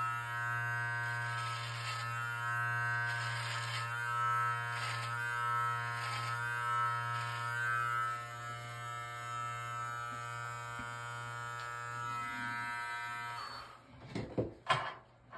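Live Bearded MT-1 cordless beard trimmer running with a steady pitched buzz, with repeated louder rasping passes as the guarded blade cuts through beard hair in the first half. It is switched off about 13 seconds in, followed by a few sharp knocks and clicks.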